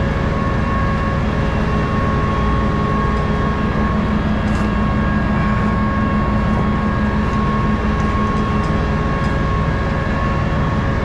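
Steady machine drone with a constant hum, and a few light clicks of chain and tarp hooks being handled.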